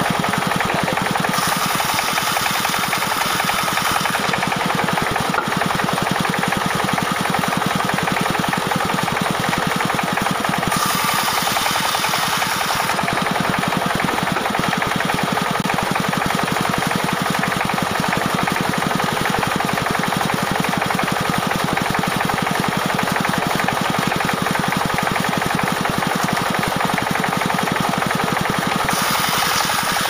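Band sawmill running steadily, its engine drive making a rapid, even beat. In several stretches, about a second in, around eleven seconds in and near the end, the blade hisses as it cuts through a log.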